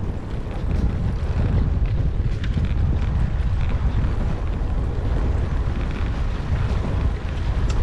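Wind buffeting the microphone of a moving e-bike as it rides into a headwind: a steady low rumble.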